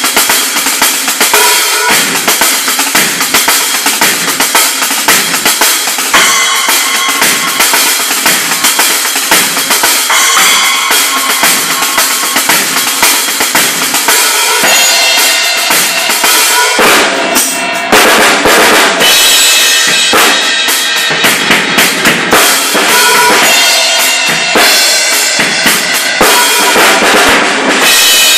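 DW drum kit with Zildjian cymbals played in a fast, busy drum solo: rapid snare, tom and bass drum strokes under a constant wash of crash and ride cymbals. The cymbal wash is heaviest for a few seconds a little past the middle.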